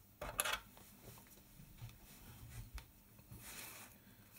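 Small printed circuit board and loose electronic kit parts handled by hand: a short loud burst of noise about half a second in, then light scattered clicks and taps.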